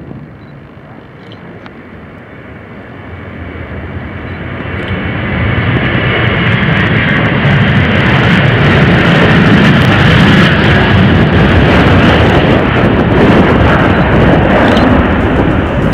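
Boeing 737-800's CFM56 jet engines at takeoff power as the airliner accelerates down the runway and lifts off. The noise builds over the first several seconds, then stays loud and steady with a crackling edge.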